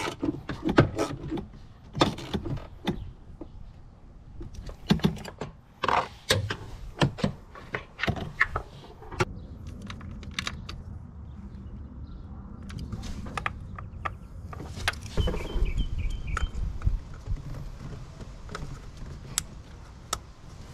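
Irregular metallic clicks, knocks and rattles of hand tools and engine-bay parts as a spark plug is worked on down beside a Ram 2500's 6.4L Hemi. A low rumble comes up for a second or two about fifteen seconds in.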